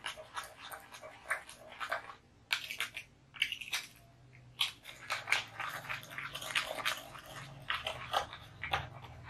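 Metal spoon beating instant coffee, sugar and water in a ceramic bowl by hand: rapid, irregular clicking and scraping of the spoon against the bowl as the mixture is whipped to thicken into foam, with brief lulls about two and three seconds in.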